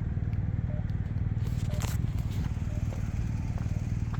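Campbell accessible pedestrian signal push-button giving its short locator beep about once a second, over a steady rumble of traffic and wind, with a brief hiss about a second and a half in.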